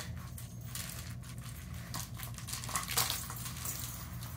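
Light plastic clicks and rattles from a circular track-ball cat toy as a kitten paws at it, with a sharper knock about three seconds in, over a low steady hum.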